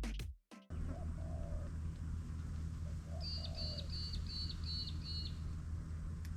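Birds calling over a steady low hum: two soft dove-like coos, then a run of six quick high chirps. Background music cuts off just before them.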